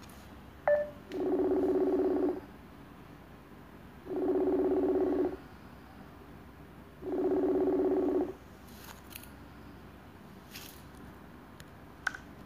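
Outgoing-call ringback tone from a smartphone calling app: three ringing tones of about a second each, roughly three seconds apart, after a short blip as the call starts. The ringing stops without the call being answered.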